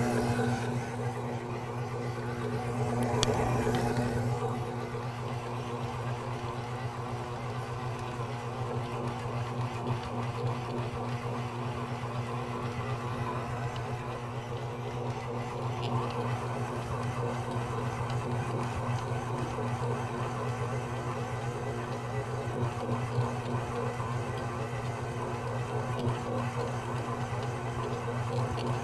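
Smeg 600-watt stand mixer's motor running with a steady hum as its dough hook kneads bread dough, with a brief click about three seconds in.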